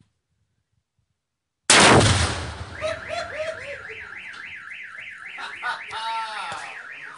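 An explosive rifle target detonating: one loud blast about two seconds in, trailing off slowly. A car alarm then goes off, its pitch sweeping up and down about twice a second.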